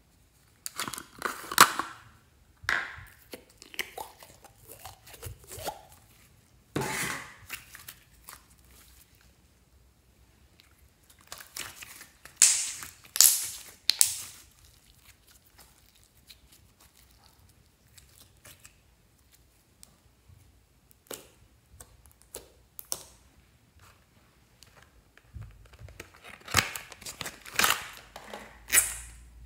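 Hands squeezing slime and handling its thin plastic wrapping: short crinkling and squishing noises in several separate spells with quiet gaps, loudest near the middle.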